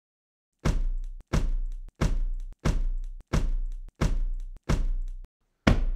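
A series of eight heavy, deep thuds, about one and a half a second, each booming briefly and then cut off abruptly. The last comes after a slightly longer pause and is the loudest.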